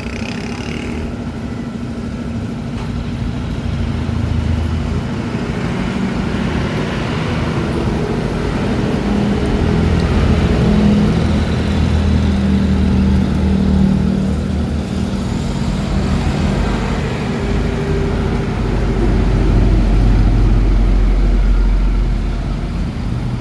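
Kawasaki Barako single-cylinder motorcycle engine running, its revs rising and easing off a couple of times.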